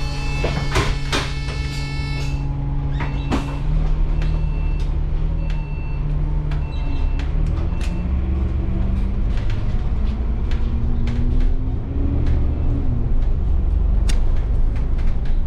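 Alexander Dennis Enviro400 double-decker bus heard from inside, its diesel engine pulling away with the pitch rising slowly for about ten seconds, then dropping sharply near the end as it changes gear. Rattles and knocks come through the body, a steady electronic tone stops about two seconds in, and a short high beep repeats about once a second in the first half.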